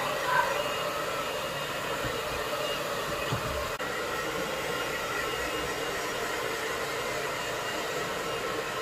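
Handheld hair dryer running steadily, blowing air over a wet puppy's coat to dry it: an even, continuous rush of air with a faint steady whine in it.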